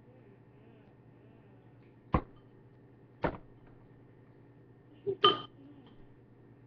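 Tableware clinking: four short sharp knocks, one about two seconds in, one about a second later, and a close pair near the end, the last one loudest with a brief ring.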